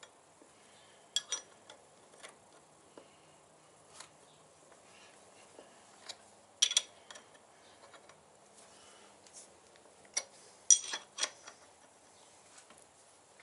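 Scattered metallic clicks and clinks of a wrench working a chain riveting tool, pressing the rivet master-link pin of an O-ring motorcycle chain to mushroom it. A few sharper clinks come about halfway through and near the end.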